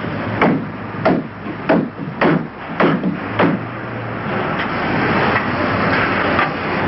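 Hammer blows on wood, about six strikes roughly half a second apart, as a wooden shipping crate is built. From about four seconds in, a steady workshop din takes over.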